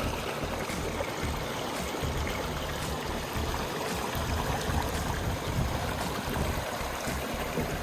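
Shallow rainwater running steadily over rocks in a wadi, with uneven low rumbles underneath.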